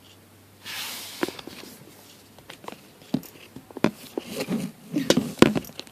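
Handling noise: a brief rustle about half a second in, then irregular knocks, taps and thumps as objects are moved and set about.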